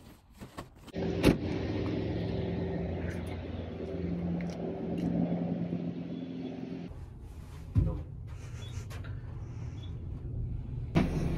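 Steady low rumble of a running vehicle engine, with one sharp knock about two-thirds of the way through.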